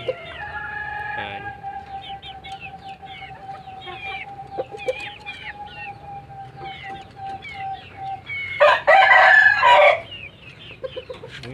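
Chickens in a coop: many short high chirps throughout and a long steady note held for about eight seconds, then a rooster crows loudly for about a second and a half near the end.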